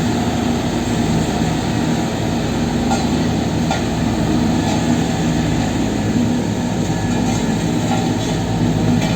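Heavy diesel road-works machinery running steadily at a constant engine speed, with a few faint clanks.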